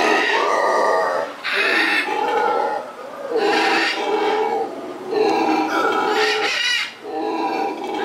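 Black howler monkeys howling back and forth: a run of loud, harsh, pitched calls, each about a second long with short breaks between. This is territorial howling between two troops that can hear each other.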